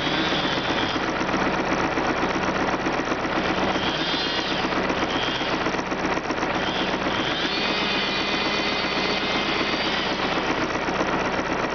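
Engine running steadily with a fast mechanical clatter. A higher whine swells and fades about four seconds in, and again for a few seconds from about seven seconds in.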